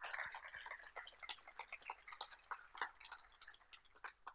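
Audience applauding, heard faintly as many scattered claps that thin out near the end.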